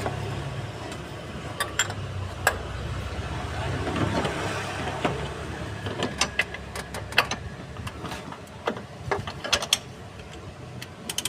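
Scattered metallic clicks and taps of hand tools working on a car's engine bay during an oil filter change, with a low hum that fades out about eight seconds in.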